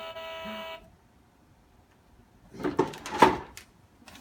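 Electronic tone from a toddler's ride-on toy car, held steady for under a second and then cut off. A louder, noisy burst follows about three seconds in.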